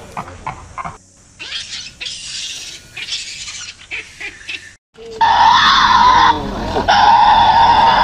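Light taps on a vehicle's glass from a baboon's hand, then after a short break a Tasmanian devil screeching, two long harsh screeches about a second each.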